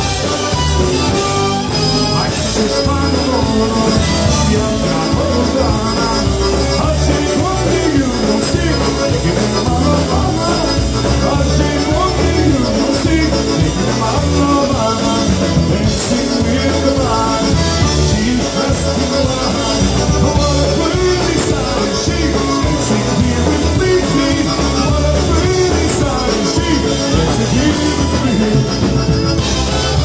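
Live polka band playing: accordions, electric bass, trumpet and clarinet over drums, with a steady bouncing bass beat.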